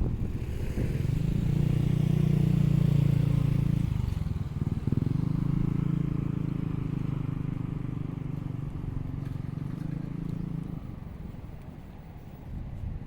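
A motor vehicle's engine running at a steady low speed close by. It is loudest two to four seconds in, with a brief break, then slowly fades away.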